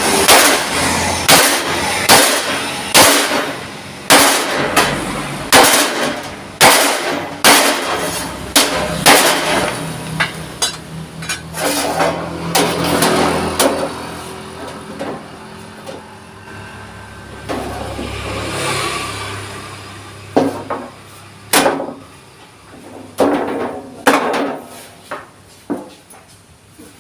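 Hammer blows on thick steel sheet, about 2 mm plate. The strikes come regularly, roughly every two-thirds of a second, for about the first half, then turn sparse and irregular after a quieter stretch.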